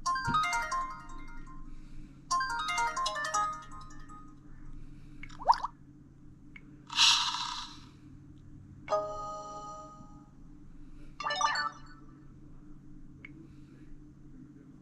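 Samsung Vibrant smartphone notification tones previewed one after another through its speaker: about six short alerts, each a second or less, with gaps between them. Two quick melodic jingles, a brief rising blip, a short hiss-like burst, then a plainer chime and a last short tone.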